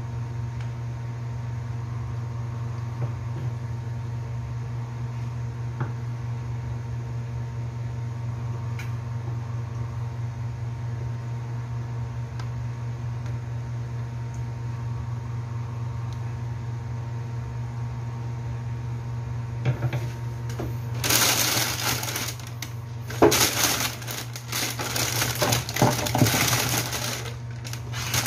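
A low steady hum, with faint knife taps as a hotdog is sliced on a cutting board. From about 21 seconds in, several seconds of loud rustling and scraping noise.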